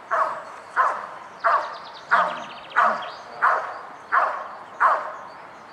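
A dog barking steadily in a regular rhythm, about nine sharp barks spaced roughly two-thirds of a second apart.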